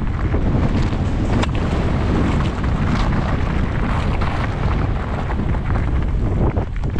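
Wind buffeting the microphone of a helmet camera on a mountain bike rolling downhill over a rocky trail, a steady loud rumble, with a few sharp rattles from the bike over loose stones.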